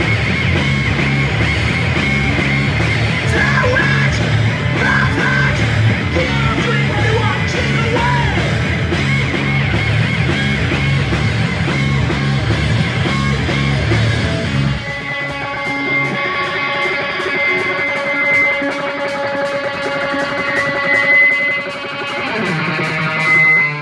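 Live noise-rock band — electric guitar, bass guitar, drums and keyboard — playing loud. About fifteen seconds in the heavy low end drops away, leaving sustained tones over a fast, even ticking, and the music cuts off at the very end.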